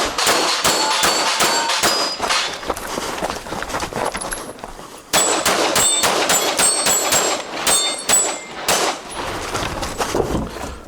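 Rapid pistol shots with steel plate targets ringing as they are hit, in two fast strings broken by a short lull about halfway.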